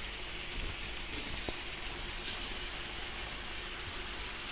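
Fish pieces with sliced onion, tomato and sweet pepper sizzling steadily in a frying pan.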